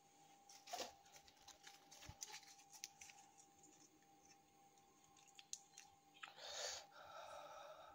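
Faint clicks and scrapes of a tiny metal spoon stirring fish curry in a miniature steel pot, with a longer scraping rustle near the end.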